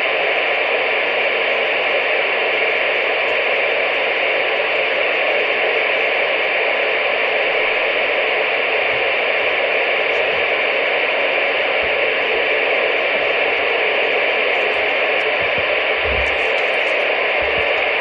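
Steady hiss of CB radio static, with no voice coming through.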